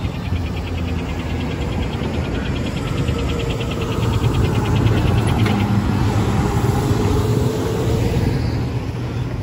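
Street traffic: a heavy vehicle's engine rumble grows louder about four seconds in and holds until near the end, as a fire ladder truck drives past. Over the first half a fast, even, high-pitched ticking runs on, then stops about five and a half seconds in.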